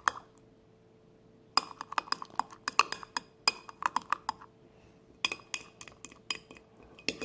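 A utensil clinking and scraping against a dish in quick runs of sharp clicks, as dish-soap-and-salt slime is worked in its container; there is a pause of about a second and a half at the start and a short gap around the middle.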